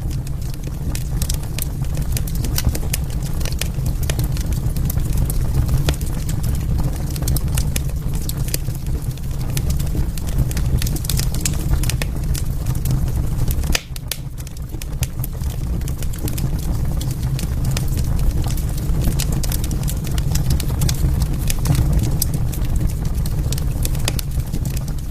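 Wood fire crackling: irregular sharp pops and snaps over a steady low rumble of burning. The sound dips briefly about halfway through.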